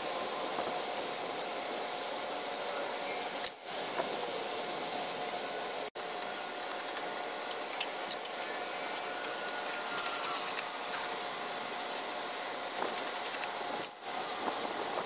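A steady motor-like whir with a faint hum, like a fan or small machine running.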